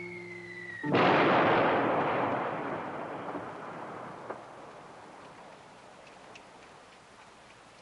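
Cannon fire: a whistle falling in pitch ends in a sudden loud blast that rumbles and fades away over about three seconds.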